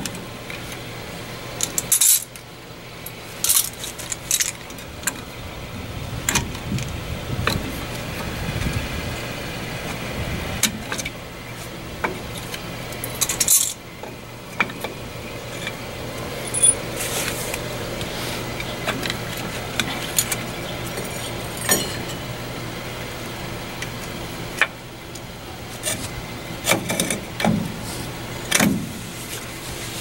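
A 1974 Ford F100's rear drum brake being taken apart by hand: brake spring pliers and the steel shoes, return springs and hardware give irregular metal clicks and clinks as the shoes come off the backing plate.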